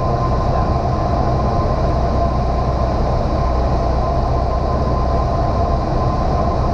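Single-engine piston airplane's engine and propeller droning steadily in cruise, heard inside the cockpit.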